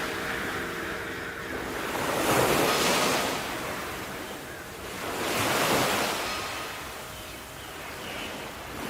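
Sea waves washing on the shore, two swells rising and falling, the louder peaks about two and a half and five and a half seconds in.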